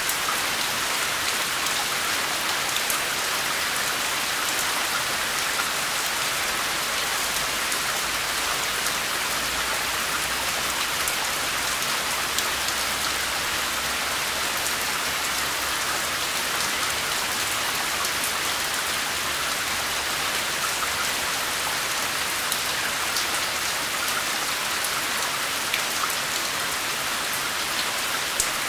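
Steady heavy rain falling, an even hiss with scattered sharper drop taps.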